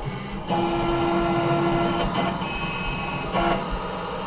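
APSX Spyder desktop CNC mill homing its axes, its stepper motors whining as the gantry travels: a steady low whine that stops about two seconds in, then a higher-pitched whine as another axis moves, and a brief low whine again near the end.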